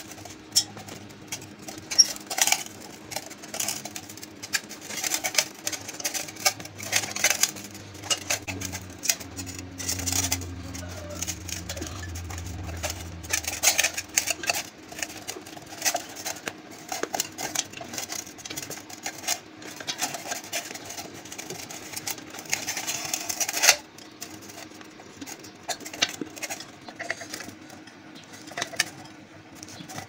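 Motorcycle inner tube and tyre being worked by hand onto a spoked wheel rim: irregular rubbing, scuffing and light knocks of rubber against the metal rim and spokes, busier for most of the stretch and sparser near the end.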